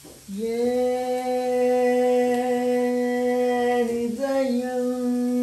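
A man's voice holding one long steady wordless note, with a brief break about four seconds in before the note carries on.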